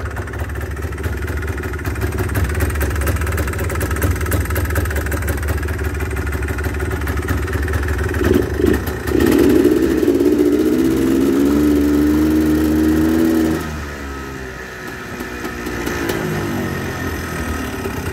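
Honda FL350 Odyssey's engine idling, then revved for about four seconds with the pitch climbing steadily before it drops back suddenly to idle; a smaller rise comes near the end.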